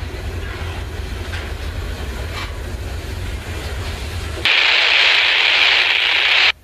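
Coal hopper cars rolling past, a steady low rumble with a few faint wheel clicks. About four and a half seconds in, a radio scanner breaks in with a loud hiss of static that cuts off abruptly about two seconds later.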